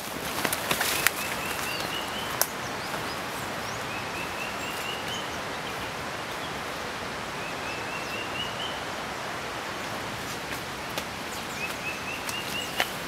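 A bird repeats a short song of quick notes rising in pitch, four times about three seconds apart, over a steady forest hiss with scattered sharp clicks.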